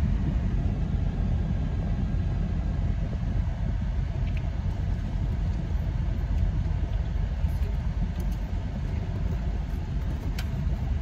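Steady low rumble of a car's cabin with the engine running, with a couple of faint clicks.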